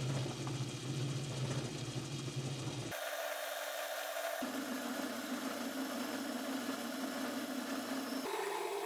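Belt-driven homemade Gingery metal lathe running steadily while a drill in the tailstock chuck bores into the end of the spinning spindle. The steady hum shifts abruptly in pitch a few times.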